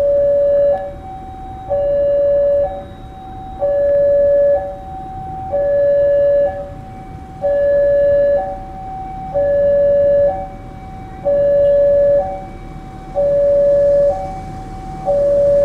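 Railway level-crossing warning alarm sounding two alternating electronic tones, a lower one then a higher one, each about a second long and repeating steadily: the signal that a train is approaching the closed crossing.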